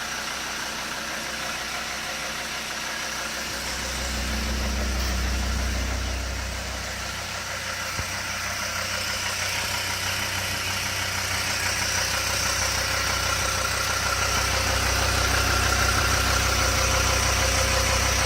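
Mercedes ML 270 CDI five-cylinder diesel engine running with a knocking noise whose cause is unknown. A deeper rumble swells about four seconds in, and the engine grows gradually louder through the second half.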